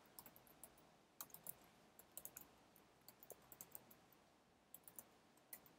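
Faint computer-keyboard typing: irregular, scattered keystroke clicks as a line of code is typed.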